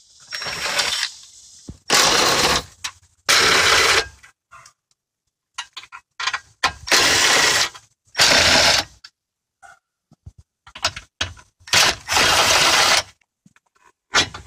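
Cordless drill-driver run in about six short bursts of roughly a second each, spinning out the mounting screws of a dashboard CD changer. Small clicks and rattles come between the bursts.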